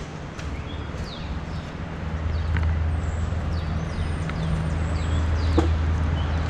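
Street ambience: a steady low traffic rumble that grows louder about two seconds in, with birds chirping in short falling notes and a few light clicks, the sharpest about five and a half seconds in.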